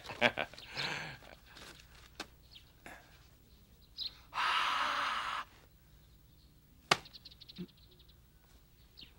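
Paper rustling and handling, then a long breathy blow lasting about a second, as onto a seal, and a single sharp knock about seven seconds in as the seal is pressed down onto the paper.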